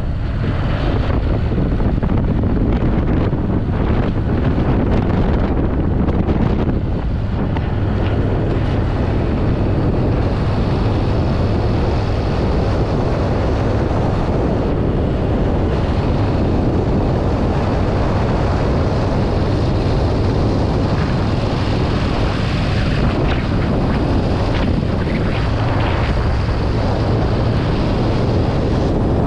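Motorcycle engine running steadily at cruising speed, mostly buried under heavy wind rush on the camera microphone.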